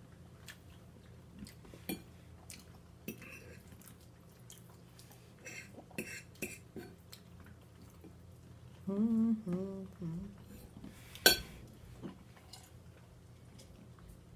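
Cutlery clinking and scraping on a plate during eating, in scattered sharp clicks. About nine seconds in comes a brief wavering hum, and a sharp clink a little after eleven seconds is the loudest sound.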